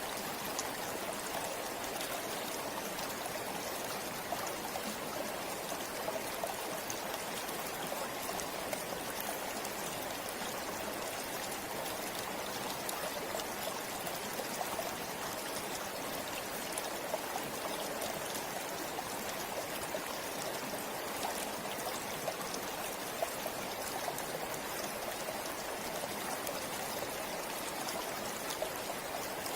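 River flowing: a steady rush of running water with scattered small splashes.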